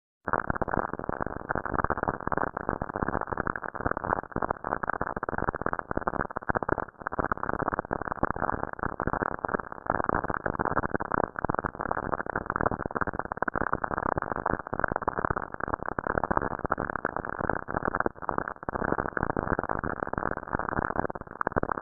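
Dense, irregular crackling static heard only in the low and middle range: spacecraft radio or plasma-wave data converted into audible sound. It starts abruptly after a brief silence.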